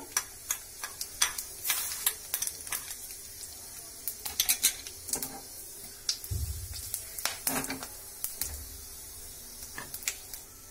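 Whole spices sizzling in hot oil in a frying pan on a high flame: a steady high hiss with many sharp clicks and crackles, and a few low knocks from a metal spoon and the pan being handled.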